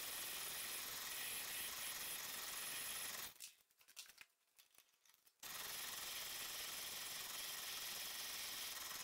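Spinning drill-driven abrasive disc and then a wire cup brush rubbing rust off a metal part, a steady grinding hiss. It drops out to near silence for about two seconds in the middle, then resumes.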